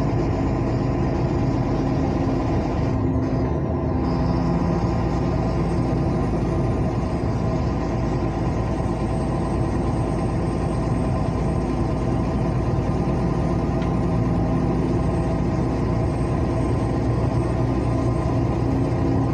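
Diesel truck engine running at road speed, heard inside the cab with steady road noise; the engine note drops in pitch about four seconds in.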